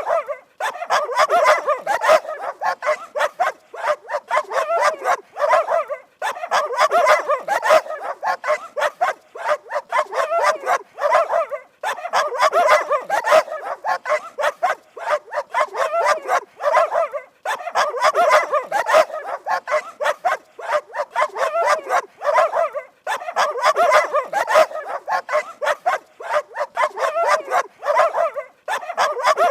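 Dogs barking rapidly, several barks a second, in runs of about five seconds broken by brief pauses.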